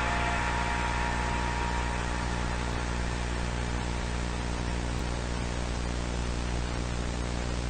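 Steady hiss of television static with a low hum underneath.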